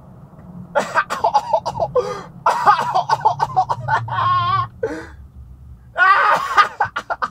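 A man's loud wordless vocal outbursts in two runs, with a wavering held note about four seconds in, over a steady low vehicle engine drone.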